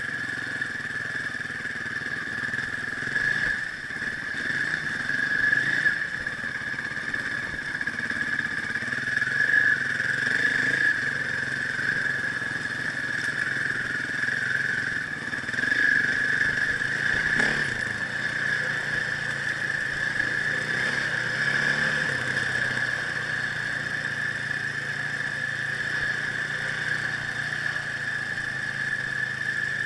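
Motorcycle engine running while riding over rough gravel, rising and falling with throttle, with a steady high drone throughout.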